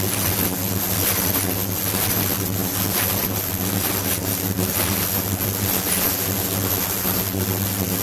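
Ultrasonic cleaning tank running, with its liquid churned into fine bubbles: a steady low hum under a hiss of agitated water, and a faint high whine.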